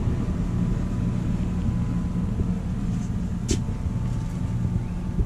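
A steady low mechanical hum, with one short click about three and a half seconds in.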